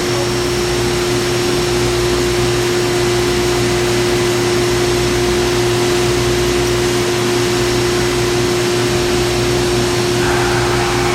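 Haas VF-2 CNC vertical mill powered up and running with a steady hum and one steady mid-pitched tone. A further whirring sound joins in near the end.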